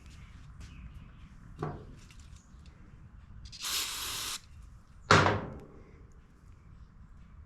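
A light tap, then a short hiss of spray lasting under a second, then a sharp knock on a hard surface with a brief ring, the loudest sound.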